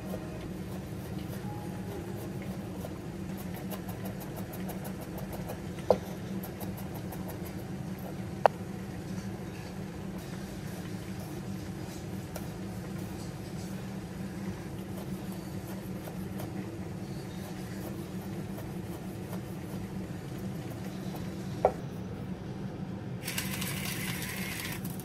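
Chef's knife cutting onion on a wooden cutting board: light cuts with three sharp knocks of the blade on the board, over a steady low hum. Near the end a salt grinder grinds for about two seconds.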